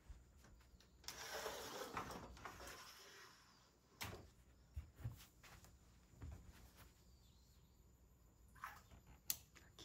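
Sliding screen door being rolled open, a faint hiss lasting about two seconds, followed by a few light knocks and clicks.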